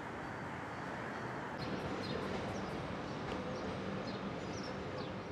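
Outdoor urban background noise, a steady rushing hum. From about a second and a half in, small birds chirp in short, high, falling calls over a steady low hum.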